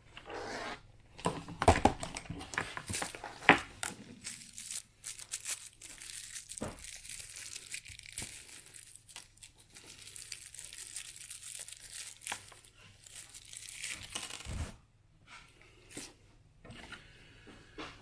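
Plastic wrapping crinkling and rustling while plastic fan parts are handled, with sharp clicks and knocks, the loudest about two and three and a half seconds in.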